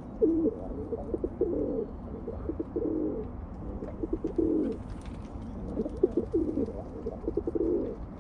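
Rock pigeons cooing: a string of low, rolling coos repeated one after another.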